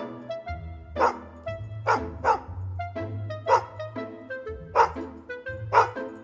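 A small long-haired dog barking, sharp single barks about every half second to second, over background music.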